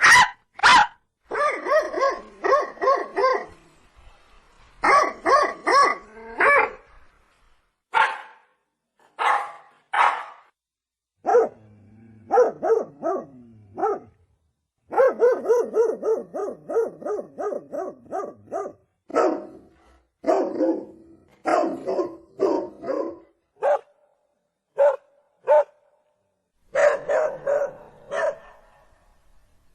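Dog barking repeatedly, in quick runs of several barks with short pauses between them.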